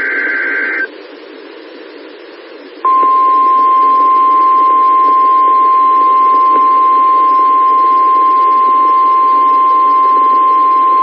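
NOAA Weather Radio test tones received over a weather radio. The last of a SAME digital header burst ends within the first second, then about two seconds of radio hiss. About three seconds in, the loud, steady single-pitch 1050 Hz warning alarm tone begins; this is the weekly test of the receivers' alarm.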